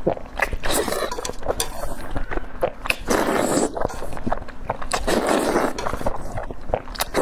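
Close-up loud wet slurping as sauce-coated noodles are sucked into the mouth, in several long pulls with smacking clicks between them.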